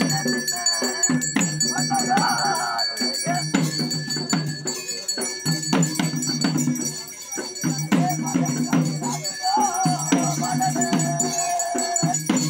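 Traditional bhuta kola ritual music: jingling, rattle-like percussion and regular drum strokes over a steady pitched drone, with a wavering melodic line about two seconds in and again from about ten seconds in.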